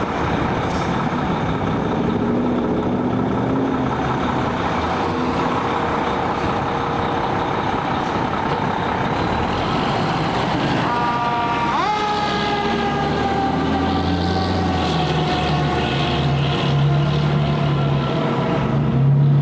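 Fire engine's diesel engine running as it pulls out, with its siren sounding about halfway in: a quick rise in pitch, then a long, slow falling wail. The engine grows louder near the end.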